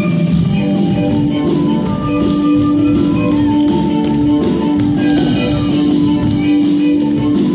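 Instrumental music with guitar, a long note held steady underneath.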